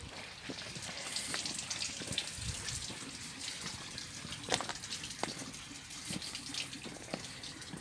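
Footsteps crunching on coarse gravel, with irregular sharp clicks over a steady rushing hiss.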